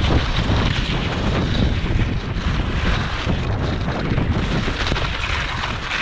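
Strong wind buffeting the microphone: a loud, unsteady low rumble with hiss over it.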